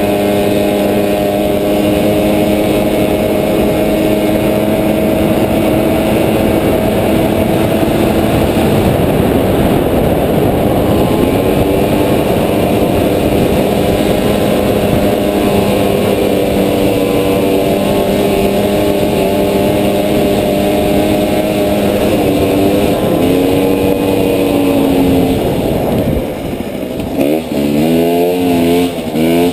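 Moped engine running steadily under throttle, heard from on the bike, over rough wind and trail noise. A few seconds before the end the revs swing up and down quickly as the throttle is worked over rough ground.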